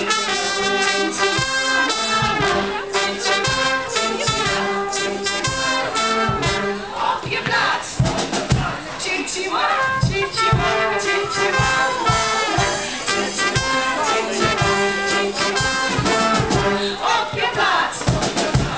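Small brass band playing a tune live, with trumpets, trombone and saxophone over a regular beat.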